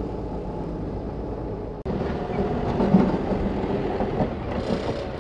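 Feed mixer wagon running with its augers turning, a steady mechanical rumble. About two seconds in it cuts to a wheel loader's engine running as its bucket pushes into a pile of cotton gin fiber, with the loudest moment near the middle.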